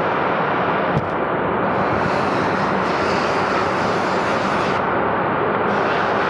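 Horizontal milling/boring machine running in a metalworking shop: a loud, steady mechanical noise with a low hum underneath. One sharp click about a second in.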